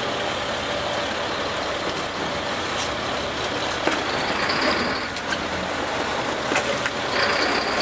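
Fishing boat's engine running steadily under a constant wash of wind and sea noise, with a few light knocks and brief louder hisses about four and seven seconds in.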